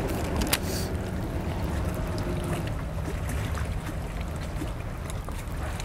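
Wind and water lapping around a small fishing boat: a steady low rumble with a faint steady hum that fades out about halfway through, and one sharp click about half a second in.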